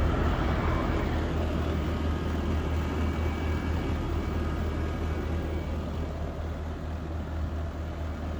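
Gree Amber Prestige 5.3 kW heat pump's outdoor unit running steadily in freezing weather: a constant low hum under an even rush of fan noise, with faint high steady tones.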